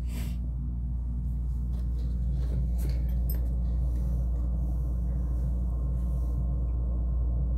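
Steady low background hum in a small room, with a few faint knocks of the phone being handled as it is turned and lowered toward the table.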